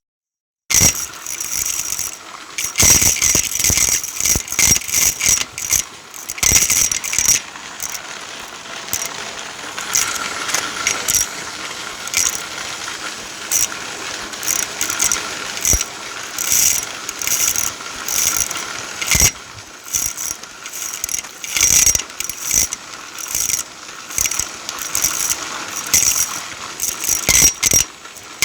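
Continuous irregular mechanical clicking and rattling, many sharp clicks a second.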